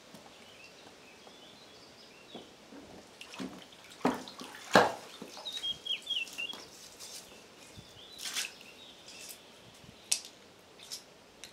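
Scattered sharp knocks and clatters, the loudest about five seconds in, with a bird chirping briefly in the background.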